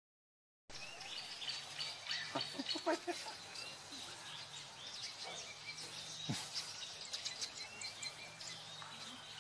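Silent for a moment, then outdoor ambience with faint chirps of small birds and scattered clicks over a low hum.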